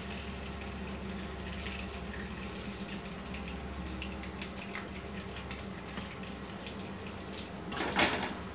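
Lamb chops frying in hot oil in a pan: a steady sizzle with small crackles and pops. Near the end there is a brief louder clatter.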